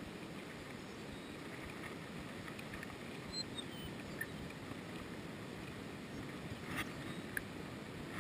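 Faint, steady, low rushing outdoor background noise, with a faint high chirp about three and a half seconds in and a couple of faint clicks near the end.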